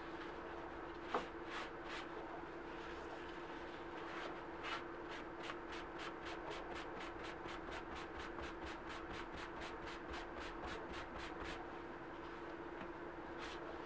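Leather dye being wiped onto a leather key chain with a dye applicator: quick, repeated rubbing strokes, several a second, thickest through the middle. A steady low hum runs underneath, with a single click about a second in.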